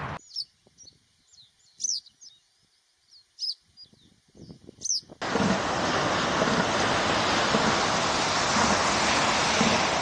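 A string of short, quick, high chirping calls over near-silence. About five seconds in, they give way to a steady, loud wash of ocean surf.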